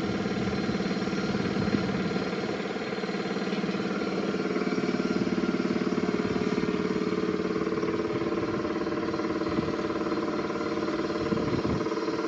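An engine running steadily at idle, with a brief low clunk near the end.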